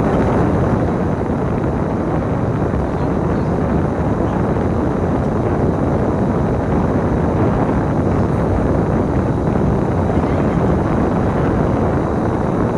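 Steady engine and road noise of a moving bus, heard from on board.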